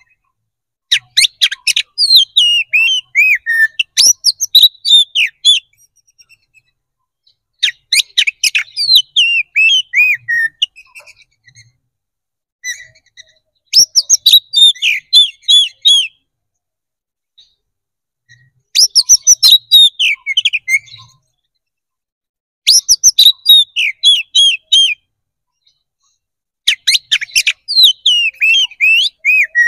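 Male oriental magpie-robin singing its loud, open fighting-style song ('ngeplong'). Six phrases of rapid chattering notes and falling whistles, each a few seconds long, with short pauses between them.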